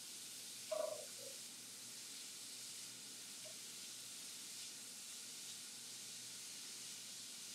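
Faint, steady sizzle of spaghetti squash strands frying in butter and olive oil in a nonstick pan as they are tossed with tongs. One brief soft sound just under a second in.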